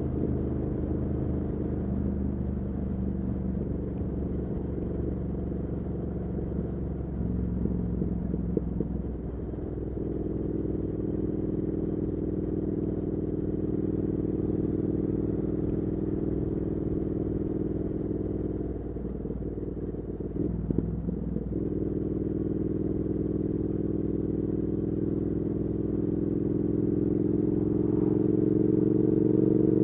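2019 Triumph Speed Twin 1200's parallel-twin engine through a Weslake Shorty Pro exhaust, heard from the rider's seat while riding. It runs steadily with two short throttle dips, one near a third of the way in and one around two-thirds through, then pulls harder near the end with the pitch rising.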